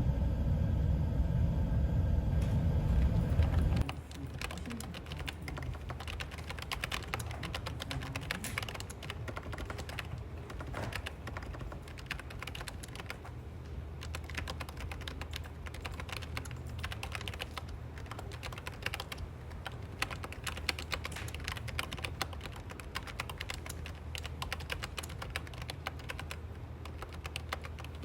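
A low steady rumble that cuts off about four seconds in, followed by fast continuous typing on a computer keyboard, a dense patter of key clicks.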